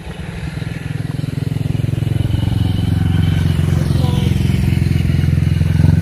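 A vehicle engine running steadily, getting louder over about the first second.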